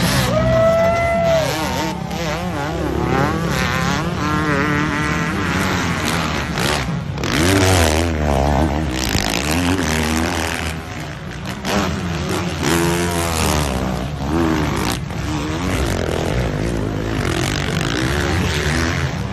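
Motocross dirt bikes racing on the track, their engines revving up and down rapidly and continuously as the riders work through corners and jumps.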